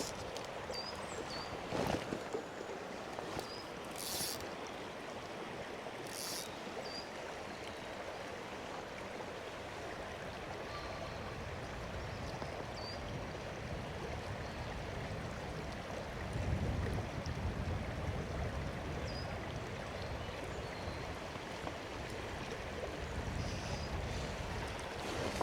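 Fast river water rushing steadily through a rocky gully, with a few brief knocks in the first seconds and a deeper rumble swelling up twice later on.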